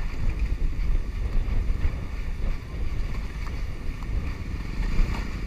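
Motorcycle engine running while riding, with wind rushing and buffeting over the helmet-mounted microphone as a steady low rumble.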